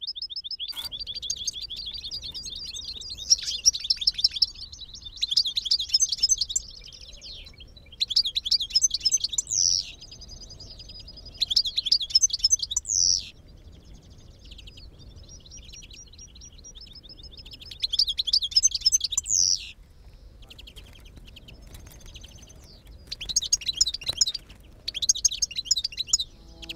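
European goldfinch singing: several loud bursts of rapid, liquid twittering, some ending in quick upward sweeps, with softer twittering and a thin held note between the bursts.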